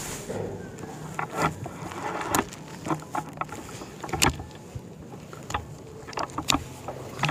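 Clicks and knocks of a Reximex Throne Gen2 PCP air rifle's action being worked by hand to load a pellet with the single-shot tray: about a dozen sharp, uneven clicks, the loudest about four seconds in.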